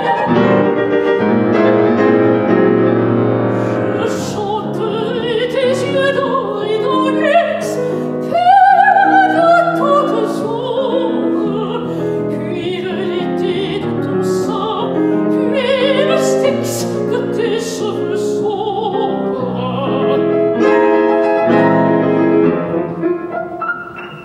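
A mezzo-soprano singing a classical art song with vibrato, accompanied by grand piano; the song closes and dies away near the end.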